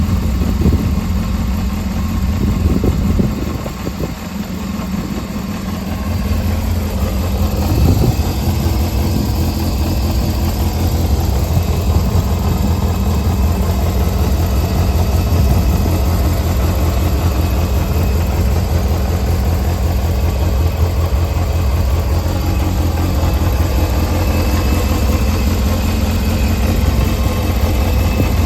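Yamaha XJR400's air-cooled inline-four engine idling steadily. Its level dips briefly about four seconds in and blips once around eight seconds, then settles. The seller claims the carburettors are overhauled and the engine runs with no abnormal noise.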